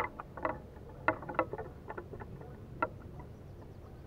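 Handling sounds as a caught pike is unhooked by hand from a metal buzz bait: a handful of short, sharp clicks and rattles in the first three seconds, over a steady low rumble.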